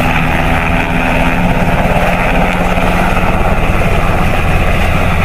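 Black Hawk-type military helicopter flying past, its main rotor beating steadily and fast over the engine noise.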